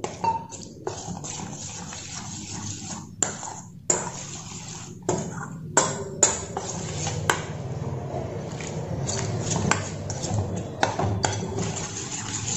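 Steel spoon stirring thick semolina batter in a stainless steel bowl: a steady wet scraping, with about ten sharp clinks as the spoon strikes the bowl's side.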